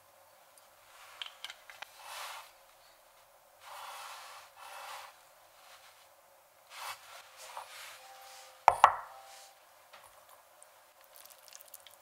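Tableware handled on a wooden board: a few light clicks and short rustling sounds, then one sharp loud knock about nine seconds in, as a ceramic bowl or utensil meets the wood.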